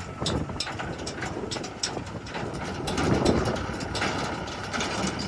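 Heavy diesel machinery running, with scattered short clicks and knocks over the engine noise.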